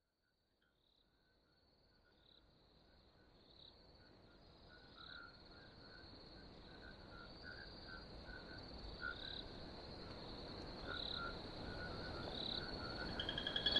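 Faint night-time chorus of insects chirping: a steady high trill with short, lower chirps repeating over it. It fades in after a few seconds of near silence and slowly grows louder.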